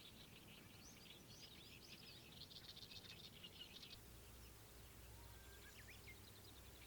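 Faint songbirds chirping, with a rapid trill, until about four seconds in; after that only a few scattered calls remain over a low steady hum.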